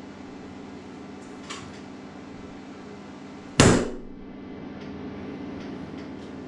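A hand slapping flat against a ceramic-tiled wall: one sharp, loud slap a little over three and a half seconds in that dies away quickly, with a faint tap about a second and a half in, over a steady low hum.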